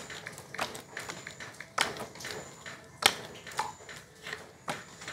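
Small playing cards being handled and shuffled, with several sharp taps and clicks as the cards are knocked together and against the wooden bench. The loudest snap comes about three seconds in.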